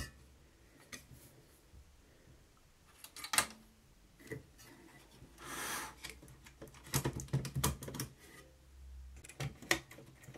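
Light plastic and metal clicks and knocks from a cassette deck's tape mechanism being pushed and wiggled into the deck chassis, several coming in a quick cluster a few seconds from the end. The mechanism is catching and won't seat, because its head assembly has been left in the play position.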